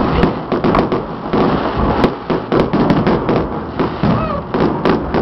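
Firecrackers and fireworks going off in a dense, continuous string of sharp bangs and pops, several a second and overlapping.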